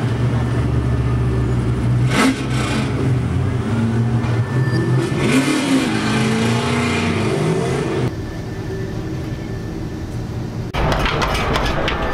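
A vehicle's engine running steadily, heard from inside the cabin, for about eight seconds, then dropping to a quieter hum. About a second before the end, a run of sharp clicks and metallic clatter begins.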